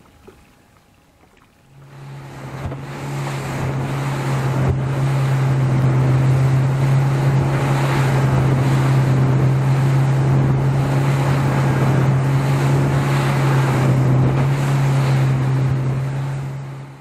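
A 70 hp outboard motor drives a small boat at speed, with water rushing along the hull and wind buffeting the microphone. It starts suddenly about two seconds in as a steady engine drone at constant pitch, and stops abruptly near the end.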